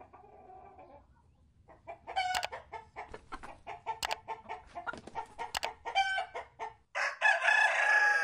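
Chickens clucking in a quick run of short calls, then a rooster crowing near the end, one long call.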